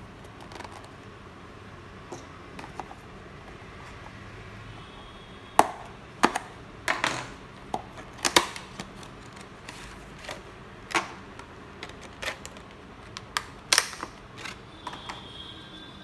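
An M.2 SSD's retail packaging being opened by hand: a quick, irregular run of sharp clicks and snaps of cardboard and plastic starting about five seconds in, with a softer crinkle among them.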